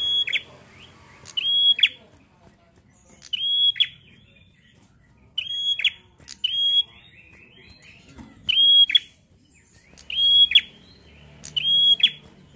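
Caged prenjak, a rufous-headed tailorbird, calling loudly: a high ringing note that snaps down sharply in pitch, given singly or in quick pairs every second or two, with scratchy chattering notes in between.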